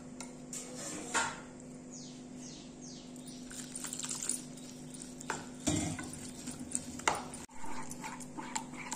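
A metal spoon stirring wet besan batter in a bowl: soft scraping and mixing, with several sharp knocks of the spoon against the bowl.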